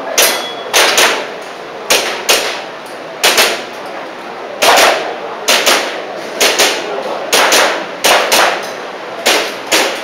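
Airsoft pistol firing a string of sharp shots, many in quick pairs.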